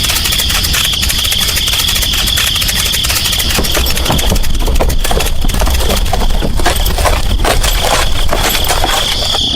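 Small motor running steadily, with a constant high whine over a fast rattle.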